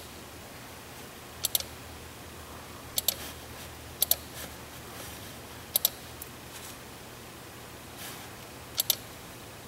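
Computer mouse clicking five times, each click a quick pair of sharp ticks, about one to three seconds apart, over a faint low hum.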